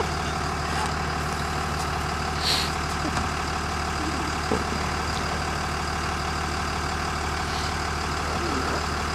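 School bus engine idling steadily while the bus stands at its stop, with a brief hiss about two and a half seconds in.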